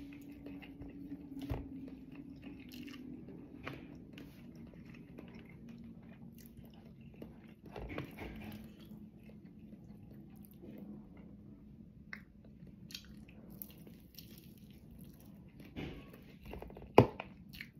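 Close-up mouth sounds of a person eating crispy fried chicken: irregular bites, chewing and crunches of the breading, over a faint low steady hum. A sharp click near the end is the loudest sound.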